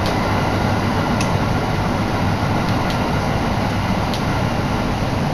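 Iwate Galaxy Railway train running at speed, heard from inside the carriage: a steady rush of running noise and wind through an open window, with a few faint clicks.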